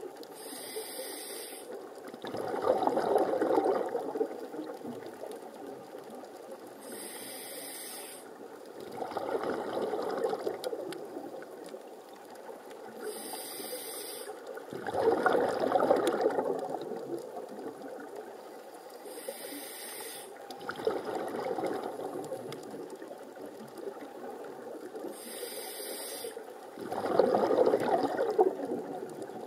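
Scuba diver breathing through an open-circuit regulator underwater: each breath is a short hiss on the inhale, followed by a louder gush of bubbling exhaust. Five breaths, about one every six seconds.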